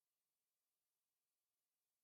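Near silence: essentially no sound, only faint digital hiss.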